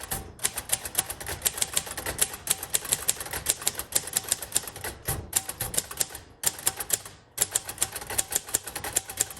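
1956 Royal Quiet Deluxe manual typewriter being typed on at a fast, steady pace: quick runs of sharp keystroke clacks as the typebars strike the platen, with brief pauses about five, six and seven seconds in.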